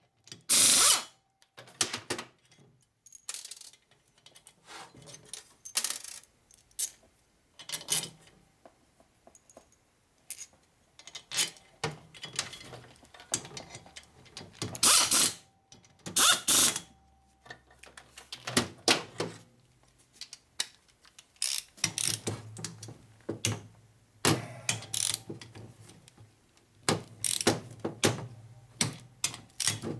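Hand-held power ratchet running rocker-box bolts down into a 1961 Harley-Davidson XLCH Sportster cylinder head in short bursts, with small metal clicks of the socket and bolts between runs.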